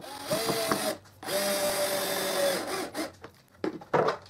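Cordless drill/driver driving a screw into a plywood board in two runs with a steady motor whine: a short one, then a longer one of about a second and a half. A few knocks of wood being handled follow near the end.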